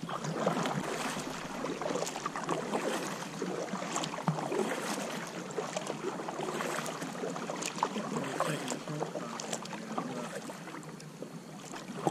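Water splashing and dripping as a kayak is paddled, with many small irregular splashes over a steady wash of water.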